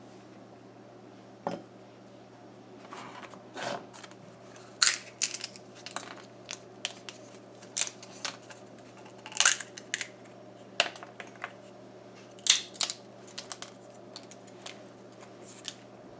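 Ripe tamarind pods being peeled by hand: the brittle shells crack and crackle in irregular snaps, with a few louder clusters of cracking. A faint steady hum lies underneath.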